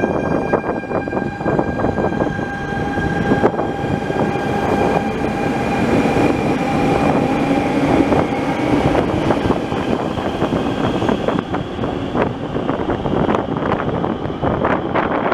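Barcelona Metro electric train pulling out of an underground station and running off down the tunnel: a rumble of wheels on rail with rapid clicking, under a steady electric whine. The higher whine tone stops about three seconds in, and a lower one dies away about nine seconds in.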